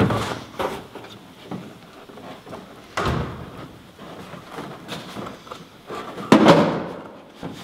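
Stiff Ram Board paperboard template being cut with hand snips and shifted against the car body: irregular cuts, rustles and dull knocks, the loudest about three seconds in and again a little past six seconds.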